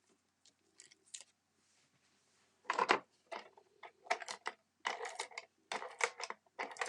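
Short crinkly rustles and taps of paper card pieces and pop dots being handled, coming in a run of about eight from about three seconds in.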